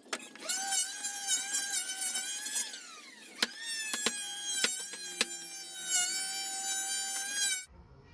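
Electric power tool motor running with a high, steady whine. It winds down in pitch about a third of the way in, starts up again after a click, and cuts off suddenly near the end. A few light clicks sound along with it.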